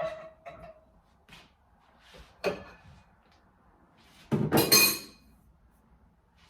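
Dishes and utensils clinking in a kitchen: a few separate light clinks, then a louder clatter lasting about a second near the end.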